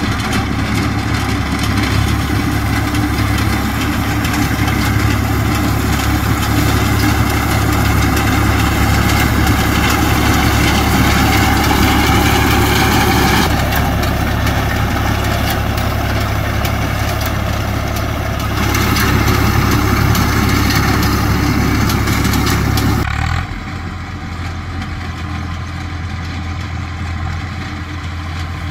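Tractor diesel engine running steadily while powering a front-mounted reaper binder cutting wheat, a deep steady hum with mechanical noise over it. The sound shifts abruptly a few times and is quieter for the last few seconds.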